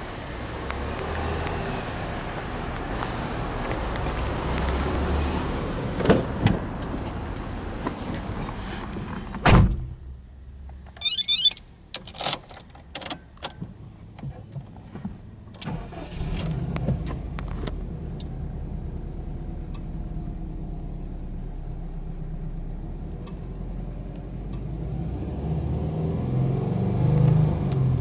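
A steady outdoor rumble, then a loud thud like a car door shutting about a third of the way in, followed by clicks and a short chime. Then a Subaru Impreza WRX's turbocharged flat-four starts, idles and is revved to about 3,000 rpm near the end.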